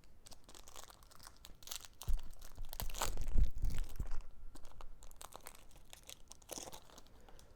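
Foil Pokémon booster pack wrapper being crinkled and torn open, a run of irregular crackles that is loudest about two to four seconds in.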